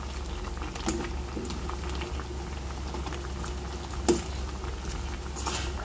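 Noodle-soup broth boiling in a steel pot, a steady bubbling, with a couple of light clicks of metal tongs against the pot, about a second in and again near four seconds.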